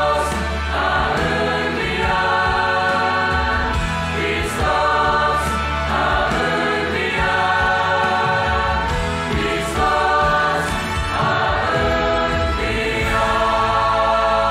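Mixed youth choir singing an Easter hymn in Romanian in held chords that change every second or two.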